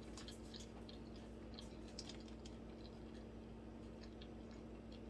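Faint close-miked chewing: scattered small wet mouth clicks and smacks, over a steady low hum.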